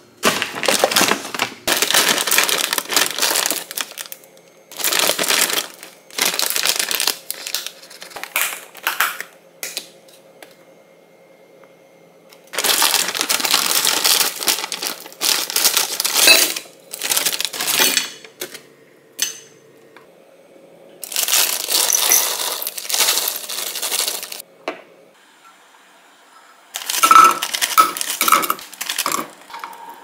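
Kitchen food-prep handling in repeated bursts: a plastic food bag crinkling and shrimp pouring and clattering into a stainless steel bowl. A few short ringing metal clinks come near the end.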